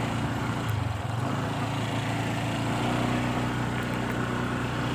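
Motorcycle engine running steadily, heard from the rider's seat, its note shifting slightly about a second in.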